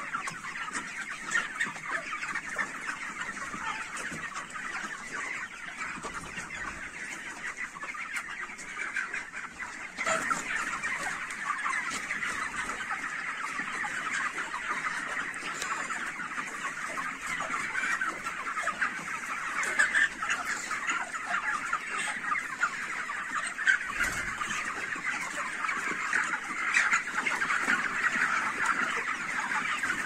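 A dense flock of young broiler chickens calling continuously, many high-pitched chirps overlapping into a steady chorus. It gets louder about ten seconds in.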